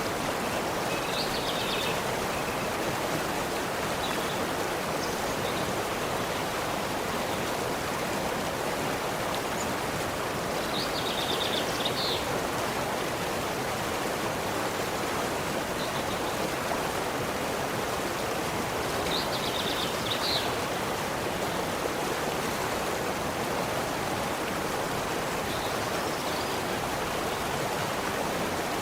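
Steady rush of flowing stream water, with a small bird giving a short high call three times: about a second in, near the middle, and about two-thirds through, plus a few fainter chirps between.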